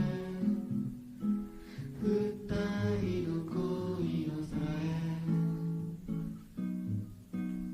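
Guitar music: plucked and strummed acoustic guitar notes.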